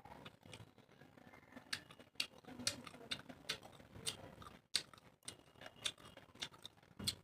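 Close-miked chewing and mouth sounds of a person eating, a run of irregular sharp clicks and smacks.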